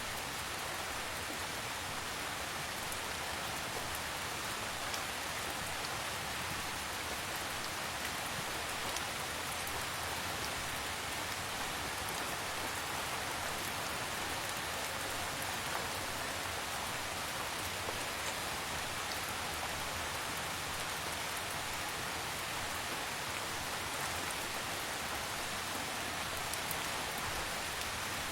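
Steady, calm rain falling: an even hiss with scattered faint ticks of individual drops.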